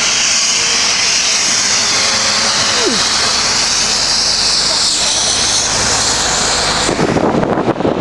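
Loud steady hiss that stops suddenly about seven seconds in, giving way to low rumbling wind and road noise.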